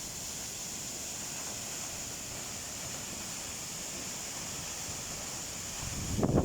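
Waterfall rushing: a steady, even hiss of falling water. Near the end a low, uneven rumble swells in, like wind buffeting the microphone.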